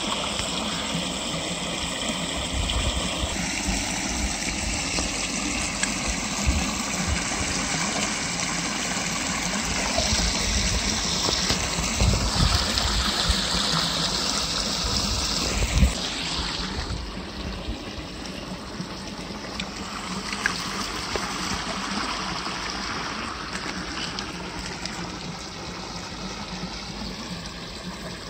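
Water spilling over a small concrete weir into the pool below, a steady rushing splash that grows quieter about sixteen seconds in.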